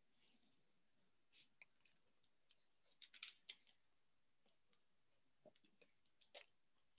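Near silence broken by faint, scattered small clicks and taps at irregular moments, a few bunched together about three seconds in and again about six seconds in.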